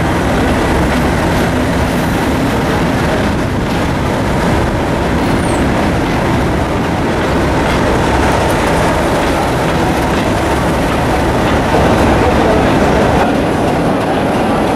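Two Class 37 diesel-electric locomotives running, their English Electric V12 engines working as they pull into the platform and pass close by. Near the end the sound changes to another diesel locomotive approaching.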